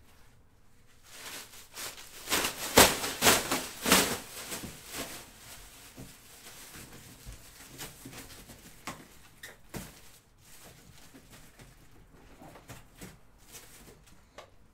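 Rustling and clattering of things being handled, with a burst of loud knocks and rustles about two to five seconds in, then scattered lighter knocks and rustles.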